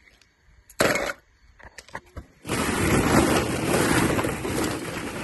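Hollow plastic ball-pit balls clattering and rustling against each other as a hand digs through them. A short rattle about a second in, then continuous clattering from about two and a half seconds in.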